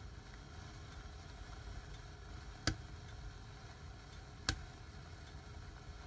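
Red 'Knallbonbon' fireplace firework burning in a fire: two sharp pops a little under two seconds apart, over a low, steady rush of the flames.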